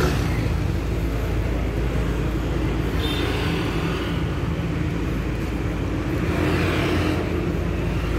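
Street traffic noise with a steady low engine hum from vehicles on the road.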